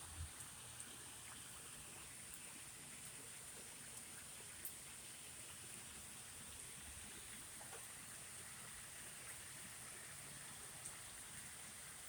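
Light rain falling: a faint, steady hiss with scattered small drip ticks. It is the first rain after a three-month dry spell.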